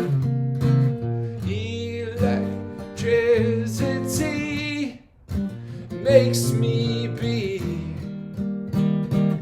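Martin GPCPA4 acoustic guitar played through a looper: a repeating strummed loop runs under an improvised lead. Twice a wavering melody line rises over it, and the sound dips briefly about five seconds in.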